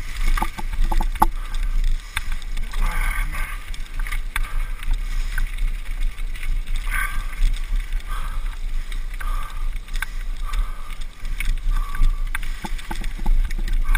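Bicycle rattling and knocking as it rides over a bumpy, muddy track, with irregular clicks and clatters from the bike and camera mount. A steady low wind rumble sounds on the microphone.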